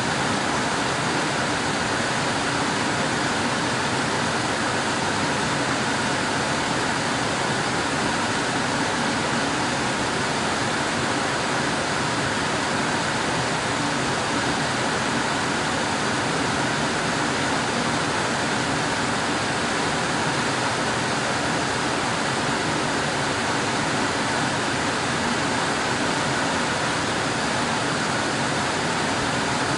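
Air conditioner running, a steady, even rush of blowing air with no change in level.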